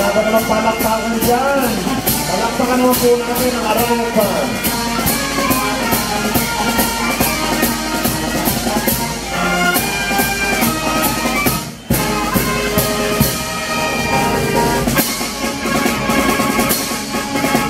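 Brass marching band playing live: trumpets, saxophones, trombones and sousaphones over a steady beat of bass drum and cymbals. The music breaks off for an instant about twelve seconds in, then carries on.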